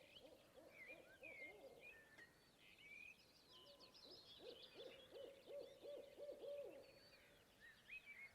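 Faint animal calls: runs of short, quickly repeated low notes, a fast series of about six near the middle, with higher chirping notes over them.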